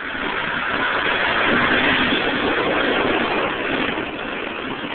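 Dodge SRT-4's turbocharged four-cylinder running loud through a dumped exhaust, getting louder to a peak about two seconds in and then easing off.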